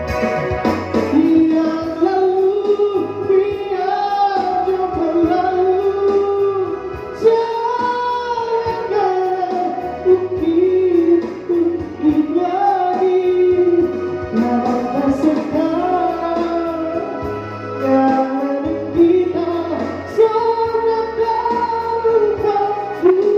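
A man singing a slow melody into a microphone while accompanying himself on an electronic keyboard, with sustained chords and a bass line under the voice.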